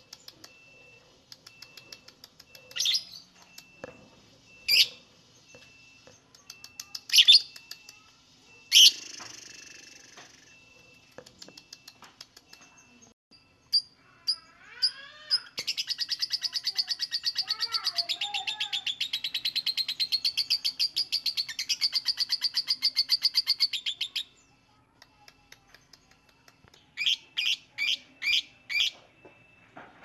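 Fischer's lovebird calling: a few sharp, shrill calls and chirps, then a rapid, unbroken chattering trill lasting about eight seconds, the long song that keepers call ngekek. Near the end comes a quick run of five shrill calls.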